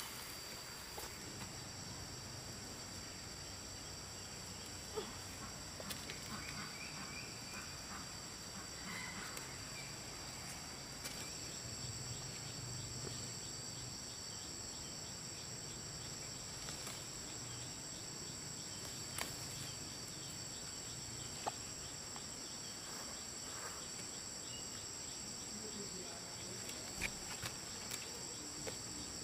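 Steady, high-pitched chorus of insects, with a few faint scattered clicks and knocks.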